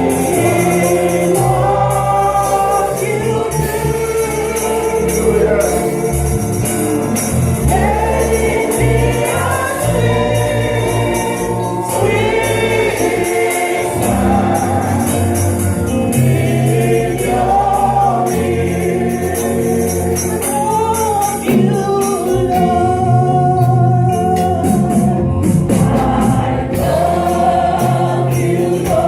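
Gospel music: a choir singing a worship song over a band with bass and a steady drum beat.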